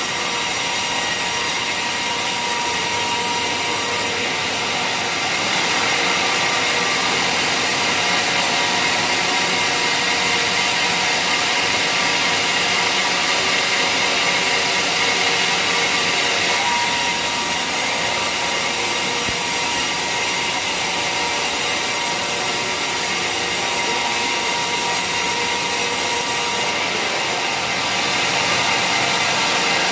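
Sawmill saw cutting through waru (sea hibiscus) timber, a steady continuous sawing noise that gets a little louder about six seconds in and again near the end.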